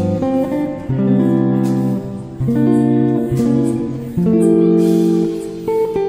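Background music: a run of sustained chords that changes about once a second.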